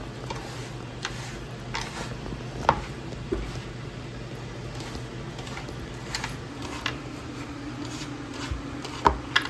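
Couscous being worked by hand in a bowl: soft rubbing with scattered light clicks and knocks against the bowl, and two sharper knocks, one about three seconds in and one near the end, over a steady low hum.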